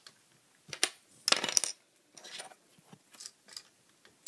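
Small plastic Lego pieces clicking and rattling as they are handled and pulled apart: a sharp click about a second in, a short clatter just after, then a few lighter ticks.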